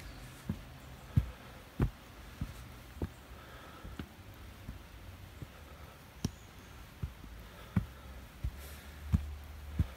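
Footsteps of a hiker climbing earth-and-log trail steps: a steady, even series of dull thuds, about one every two-thirds of a second, some much heavier than others.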